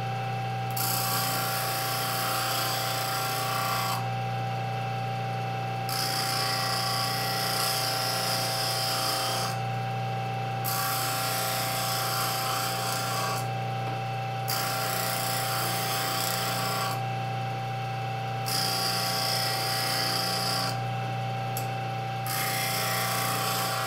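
Bench grinder running with a steady hum while an O1 tool-steel rod, held in a wooden jig and pressed lightly to the wheel, is ground in six rasping passes of two to four seconds each, with only the motor's hum between them. The rod is turned between passes to grind each face of a three-point woodturning tool.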